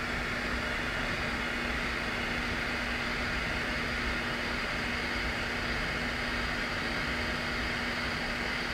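Small gas torch hissing steadily as it heats a tiny brass part for soldering, with a low steady hum underneath.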